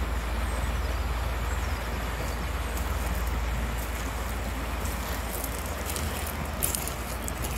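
Low, steady engine drone of a river passenger ship passing close by, with a few light clicks near the end.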